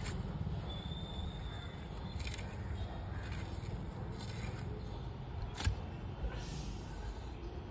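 Outdoor construction-site ambience: a low steady rumble with a few sharp knocks, the loudest about two-thirds of the way through.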